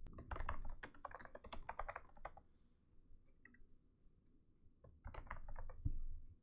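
Typing on a computer keyboard in two runs of keystrokes: a longer run in the first two seconds or so, then a shorter one about five seconds in.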